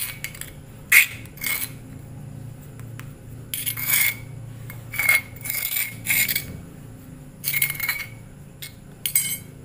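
Metal spoon scraping against a stone mortar (cobek) as finished fishing-bait paste is scooped out, in about seven short strokes, some in quick pairs.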